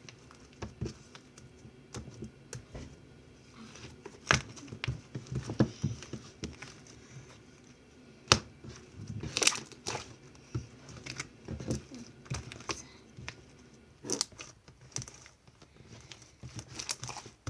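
Slime being stretched and worked by hand, with irregular sticky clicks and crackles and a few sharper snaps.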